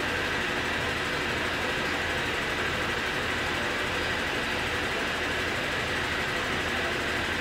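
Steady drone of commercial laundry machinery running, with a faint steady whine above it.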